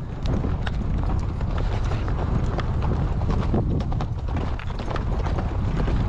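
Horse hooves clip-clopping on a dirt road, irregular hoofbeats over a steady low rumble.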